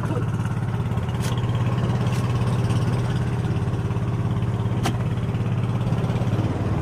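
Boat engine running steadily at an even pace, with a few sharp clicks from the fish being handled.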